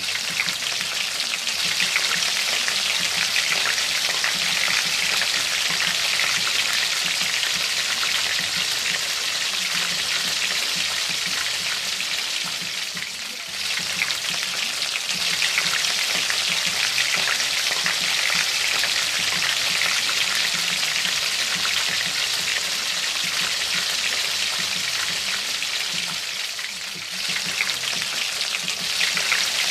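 Flour-dredged pork chops frying in hot oil in a stainless steel skillet: a steady, dense sizzle of bubbling oil that eases off briefly twice, about halfway through and near the end.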